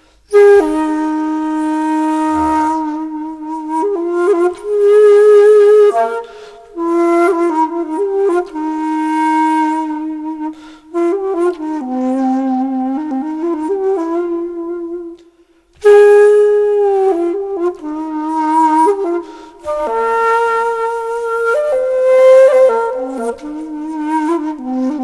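Music: a solo flute playing a slow melody of long held notes in phrases.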